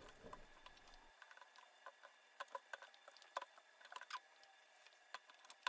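Near silence with faint, scattered light ticks and crackles from a sheet of fiberglass mat being handled.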